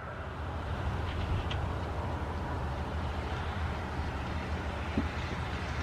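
Steady low outdoor rumble, like distant traffic, with the siren's loudspeakers silent between voice messages.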